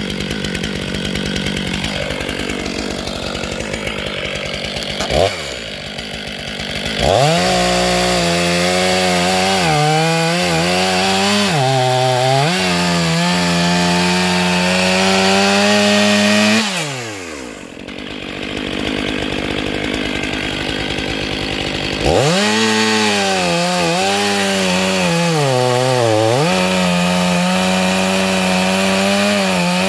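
72cc Neo-Tec two-stroke chainsaw running at a low speed, then opened up to full throttle about seven seconds in. It holds a high steady pitch that sags briefly when the engine takes load in the cut. The engine drops back partway through, then goes to full throttle again with another brief sag.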